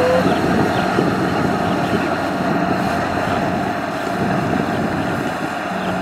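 Kubota DC-70 combine harvester's diesel engine and threshing machinery running steadily at working load as it cuts and threshes rice, a continuous even hum.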